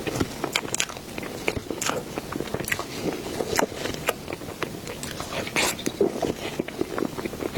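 Close-miked eating: a person biting and chewing dessert, with many short, irregular mouth clicks throughout.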